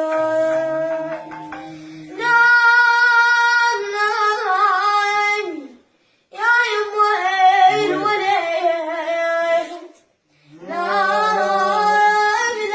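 A high voice singing a Shia elegy (latmiyya), in long, held, ornamented phrases separated by brief pauses.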